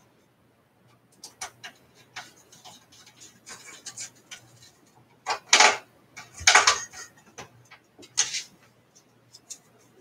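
Scattered small clicks and taps of screws and metal parts being handled while a motherboard is fitted into a desktop computer case, with a few louder knocks past the middle.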